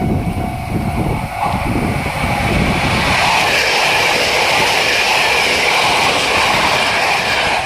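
789-series limited express electric train running past at speed: a rushing noise that builds about a second and a half in and cuts off suddenly near the end. Wind buffets the microphone throughout.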